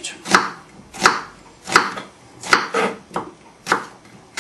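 Kitchen knife slicing through an onion and knocking down on a wooden chopping board, a steady series of knocks a little faster than one a second.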